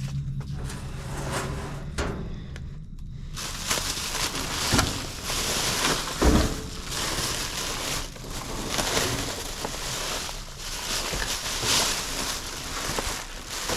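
Rummaging through a dumpster: plastic bags and food packaging rustling and crackling, with irregular thumps of items being shifted. A low steady hum fills the first few seconds before the rummaging starts.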